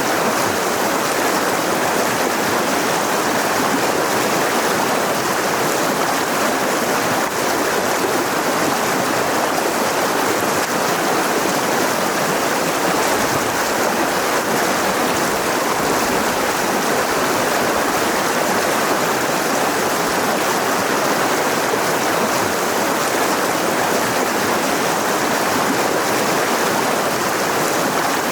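Mountain river rushing over rocks: a steady, unbroken roar of flowing water.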